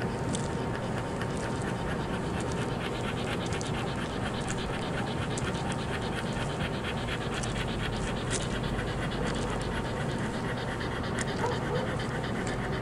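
A dog panting in a steady, rapid rhythm close to the microphone.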